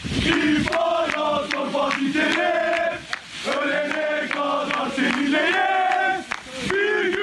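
Crowd of football supporters chanting in unison in long sung phrases, with sharp cracks on a regular beat of about two a second. The chant breaks briefly twice, about three seconds in and near the end.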